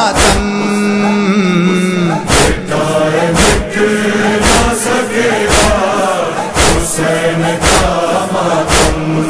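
A noha's backing chorus of voices chanting long held notes over a steady beat of sharp chest-beating (matam) slaps, about one to two a second.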